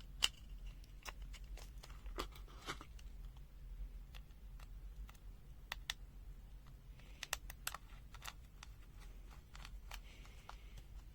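Sparse, faint clicks and taps from handling a small plastic multimeter and its accessories, a few grouped together now and then, over a steady low hum.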